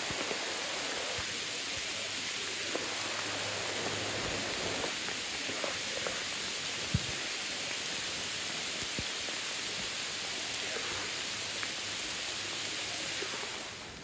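Steady rain falling through the forest, an even hiss with a few faint clicks of drops. It drops away just before the end.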